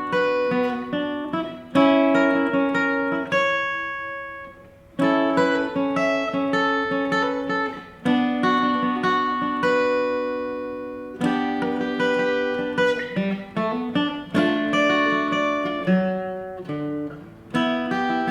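Background music: an acoustic guitar plays plucked notes and strummed chords, each one ringing out and fading.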